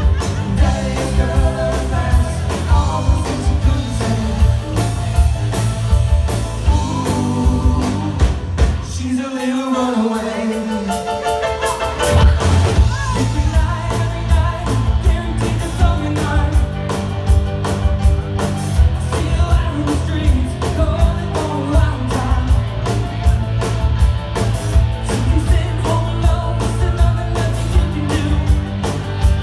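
Live rock band playing with a singer: drums, bass and guitars. The bass and drums drop out for about three seconds near the middle, leaving a sliding tone, before the full band comes back in.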